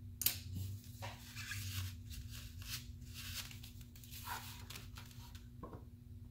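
Hands handling small tools on a foam mat at a workbench: a sharp click about a quarter-second in as a brush is set down, then a few seconds of light, irregular rustling and scraping. A steady low hum runs underneath.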